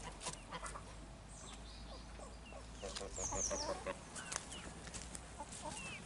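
Domestic chickens clucking, with a burst of short clucks about three seconds in, along with scattered high chirps and a few sharp clicks.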